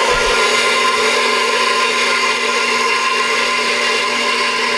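KitchenAid Professional 5 stand mixer running with a steady motor whine, briefly stirring warm water, honey and active dry yeast in the bowl to proof the yeast.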